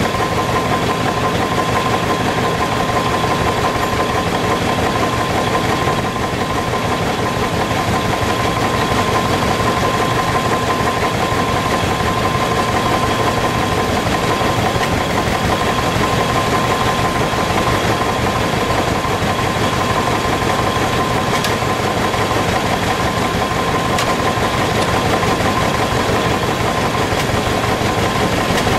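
Circular sawmill belt-driven by a steam engine, running free: the big blade spins without cutting, a steady whine over the continuous drone of the driving machinery.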